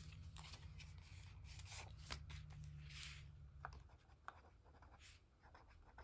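Faint scratching of a ballpoint pen writing on a paper budget sheet, in short scattered strokes.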